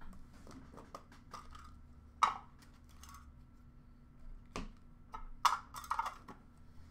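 Light clicks and taps of trading cards and clear plastic card cases being handled and set down on a counter, with a few sharper clicks about two seconds in and around five and a half seconds.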